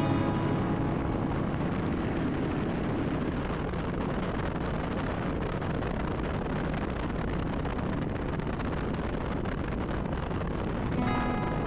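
Wind rushing over the microphone with the low, steady drone of a Suzuki Boulevard M109R's V-twin engine cruising at constant speed.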